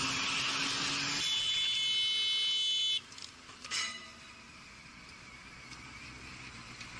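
Wind and engine noise from a riding motorcycle, heard on its mounted camera, with a steady low hum. About a second in, a high-pitched buzzing tone sounds for about two seconds. Then the sound suddenly drops to faint noise with one brief rustle.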